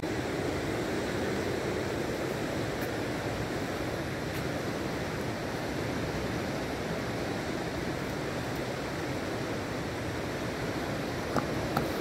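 Rushing river water, a steady even rush, with two short sharp clicks near the end.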